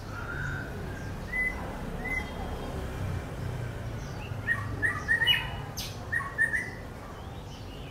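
Small birds chirping in short high notes: a couple of chirps early and a quick string of them about halfway through, over a low steady background rumble.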